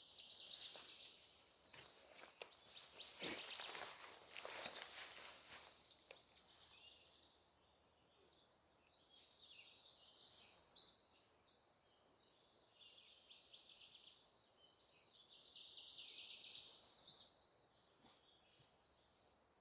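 Songbirds singing: loud phrases of quick high notes come every few seconds, with quieter chirping between them.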